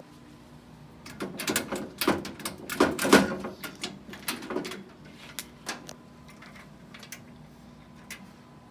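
A quick clatter of clicks and knocks lasting about four seconds, thinning out to a few scattered clicks near the end, over a faint steady hum.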